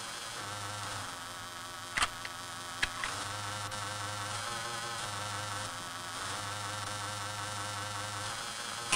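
Steady, insect-like buzzing drone from the film's soundtrack, with several sharp clicks about two and three seconds in and another near the end.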